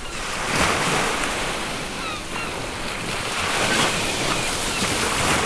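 Ocean surf washing in and out in slow swells, with a few faint, short gull calls over the waves.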